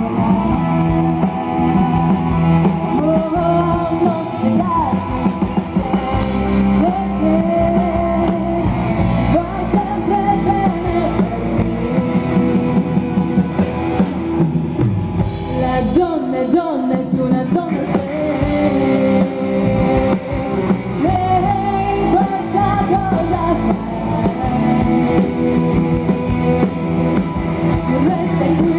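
Rock song with singing, electric guitar and drums, played loud.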